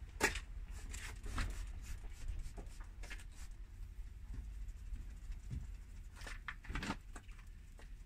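1000-grit sandpaper rubbing across a plastic headlight lens in short, irregular scraping strokes, over a low steady hum.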